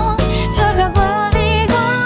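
Pop ballad music at full level: a wavering lead melody line over a band accompaniment with a regular drum beat.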